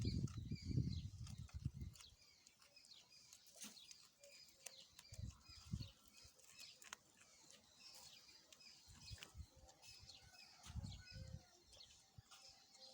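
Small birds chirping repeatedly in the background, short high calls throughout. Low muffled thuds come in a few clusters, loudest at the start.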